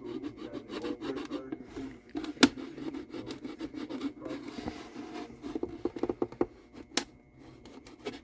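A tool scraping and working along the glue joint between a mandolin's wooden back and rim as the back is prised off, with rubbing broken by small clicks and a few sharp ticks as the old glue gives way.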